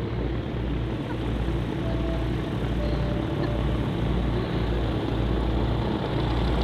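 Microlight aircraft in flight: a steady engine drone under heavy wind noise, with a low, pulsing rumble buffeting the microphone.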